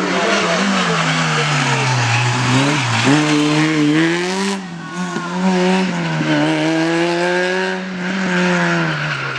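Rally car engine under hard driving, its pitch falling, then climbing on the throttle, cutting sharply about halfway through on a lift or gear change, climbing again and easing off near the end.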